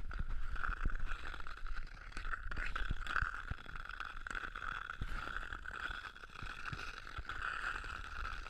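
Ice skate blades gliding over rough, ice-covered pavement: a steady scraping hum with many small clicks and knocks from bumps in the ice.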